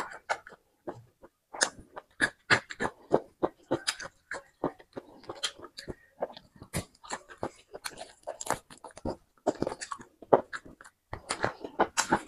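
Close-miked eating sounds: a person biting and chewing food, with wet lip smacks and crunches coming as many sharp, irregular clicks.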